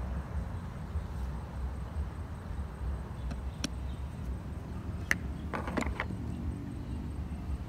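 Wind buffeting the microphone as a steady low rumble, with a few sharp clicks about halfway through.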